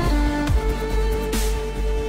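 Electronic background music with held notes and a slow drum beat.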